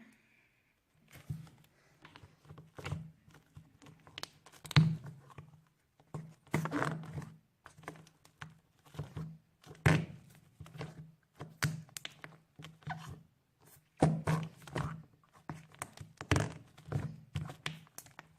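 Homemade slime being squished and pressed, giving repeated irregular squelching pops and fart-like noises, the loudest about 5, 10, 14 and 16 seconds in.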